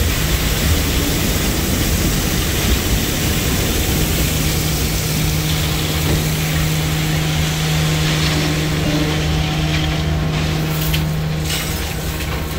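Coal pouring from a rail loadout chute into an open hopper car: a steady rushing noise, with a low machine hum joining about four seconds in and dropping away near the end.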